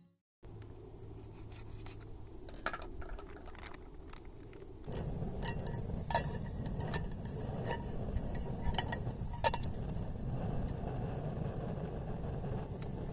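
Scattered light clicks and clinks, as of gear or utensils being handled, over a steady low rumble that gets louder about five seconds in.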